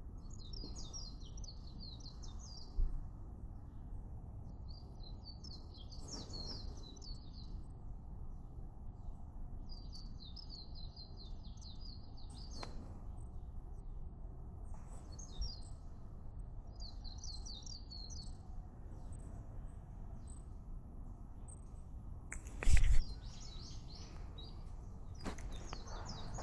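A small songbird singing quick twittering phrases, each lasting about two seconds and repeated every few seconds, over a steady low rumble. A single loud knock comes near the end.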